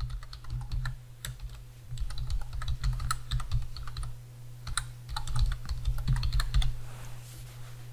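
Typing on a computer keyboard: runs of quick keystroke clicks in several bunches with short pauses between them.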